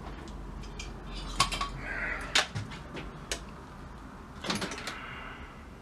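Restored needle nose pliers being tried out: their steel jaws and side cutter closing with sharp metallic clicks, about five spread over a few seconds.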